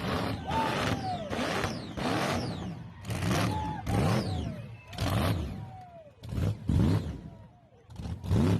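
A car engine being revved in repeated short blips, about one a second, each rising and falling in pitch. The owner takes the way it runs as the sign of a mechanical fault in the engine rather than an ignition problem.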